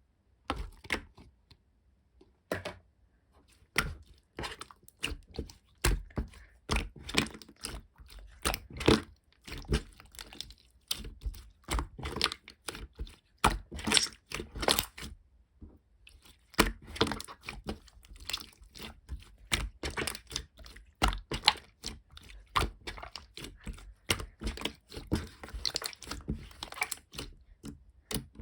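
Slime being squeezed and pressed by hand, making quick runs of wet clicks and pops, with a pause of about a second around the middle.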